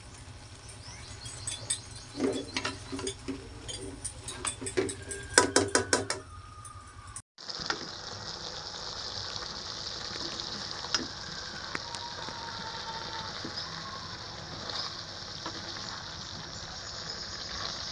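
A spatula knocking and scraping against a honeycomb-textured wok as bitter melon and pork are stirred, in quick uneven clatters. After a short break near the middle, steady sizzling of the bitter melon, pork and egg frying in the pan, with a few light spatula taps.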